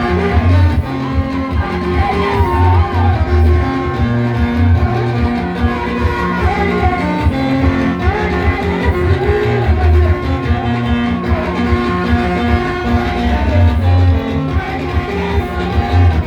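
Praise music: guitar over a pulsing bass, with a gliding lead melody on top.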